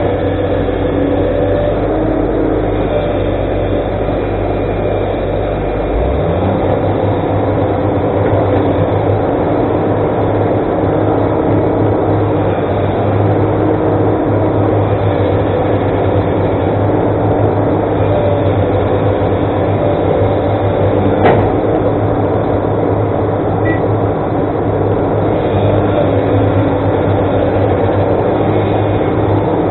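Heavy diesel engine of an excavator running steadily under a dense mechanical hum. A low drone cuts out about six seconds in, and there is one sharp click about two-thirds of the way through.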